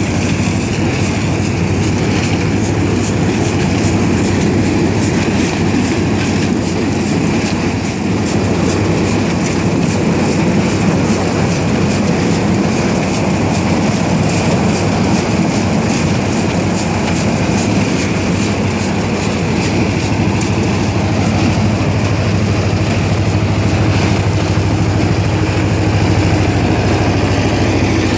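Same tractor's diesel engine running steadily while driving a SIP Šempeter corn picker through the crop, the picker's rollers and chains rattling and clattering as ears are stripped and dropped into its box.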